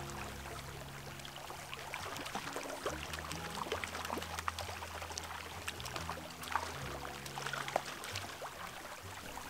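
Water in a shallow mountain creek trickling and splashing, with many small ticks and splashes as the angler wades. Low, held background music notes that change every second or so run underneath.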